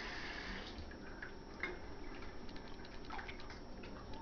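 Kitchen tap running cold water into a stainless steel bowl of boiled, drained noodles to rinse them. The water stops less than a second in, leaving scattered drips and small taps.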